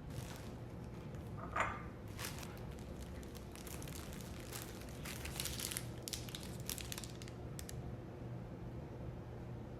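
Packaging crinkling as it is handled, in repeated short bursts that are busiest in the second half, with one brief, sharper, louder sound about one and a half seconds in.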